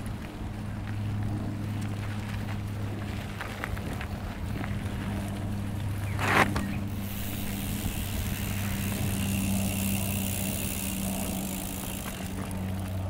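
Mountain bike passing on a dirt trail: a short, loud rush of tyre noise about six seconds in, over a steady low hum, with a high hiss coming in just after.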